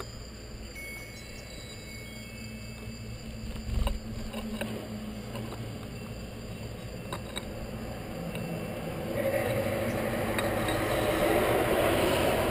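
Outdoor background with a few faint, short high chirps and clicks and a single knock about four seconds in; from about nine seconds in a steady rushing noise swells up and stays, like a road vehicle passing.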